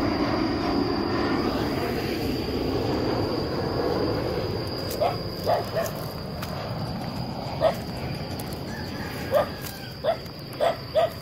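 Jet airliner passing low overhead, a loud rumble that fades away over the first four or five seconds. Then a dog barks in short single barks, about seven in the last six seconds.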